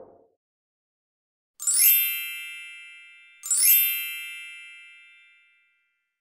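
Two bright chime sound effects, a little under two seconds apart, each a quick rising sparkle followed by a ringing tone that dies away over about two seconds.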